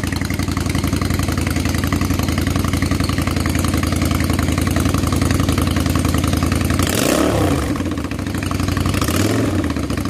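Engine idling steadily, blipped twice with quick revs that rise and fall about seven and nine seconds in.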